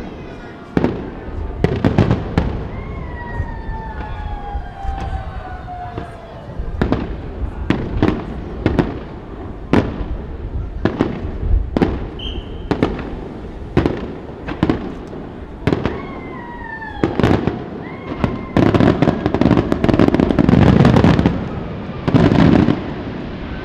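Aerial firework shells bursting in a rapid run of sharp bangs about a second apart, with two slow falling whistles. Near the end a dense finale barrage of crackling bursts.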